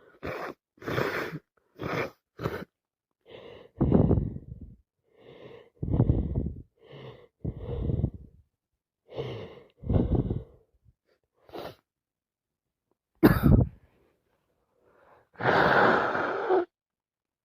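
A person with a heavy cold sniffles quickly four times, then sneezes several times, each sneeze led by a short gasping intake. A sharp, loud sneeze comes about 13 seconds in, and a longer blow of the nose follows near the end.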